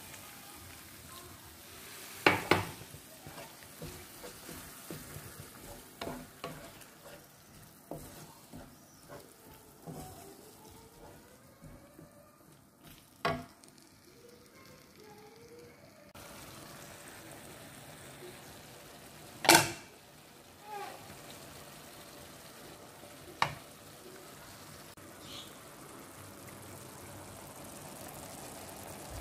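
Onion and tomato sauce sizzling in a frying pan, stirred with a wooden spoon, with about six sharp knocks scattered through, the loudest about two-thirds of the way in.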